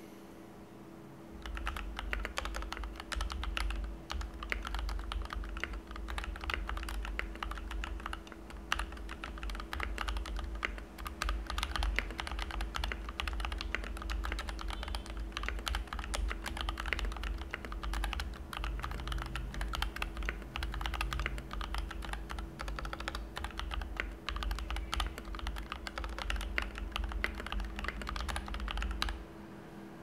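Fast, continuous typing on a Noir OLV75 mechanical keyboard with stock pre-lubed JWK Ultimate Black linear switches, PBT double-shot keycaps and Krytox 205G0-lubed plate-mount stabilisers. The typing starts about a second and a half in and stops a second before the end.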